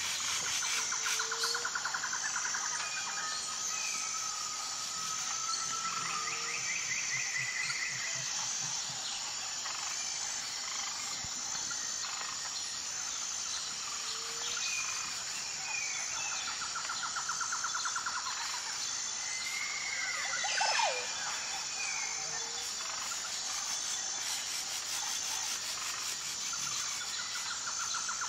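Forest ambience: a steady high insect chorus with birds calling, whistling and trilling, and one short, louder falling call about three quarters of the way through.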